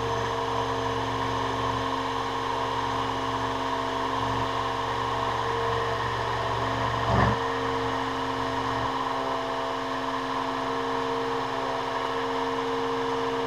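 Sieg X2 mini mill running a fly-cutting pass at about 800 RPM: a steady machine hum with several steady tones. There is a single click about seven seconds in, and the deepest part of the hum drops away about nine seconds in.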